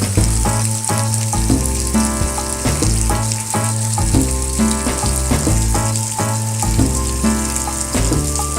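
Steady hiss of desert monsoon rain, mixed with music that has a stepping bass line and clear melodic notes.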